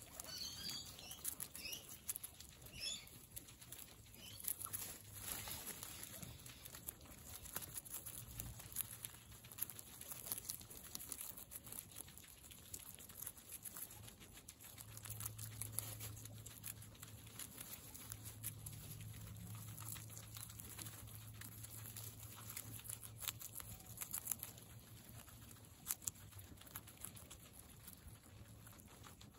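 Several guinea pigs chewing and crunching raw carrot slices and celery, a steady patter of small crisp crunches with hay rustling under them. A few short high squeaks sound in the first few seconds.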